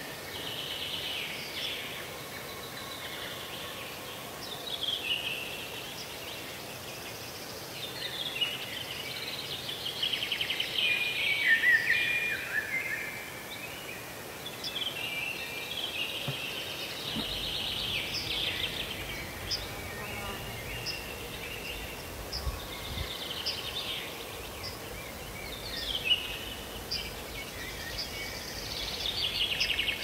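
Several songbirds singing: repeated bright phrases, some of them falling trills, coming every few seconds. A faint low rumble comes in about halfway through.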